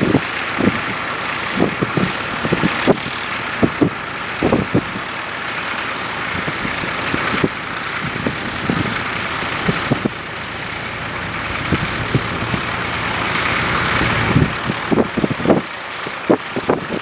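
Ford 4000 four-wheel-drive tractor engine running steadily under load while pulling a two-furrow plough. Frequent short low thumps come through, clustered near the start and again near the end.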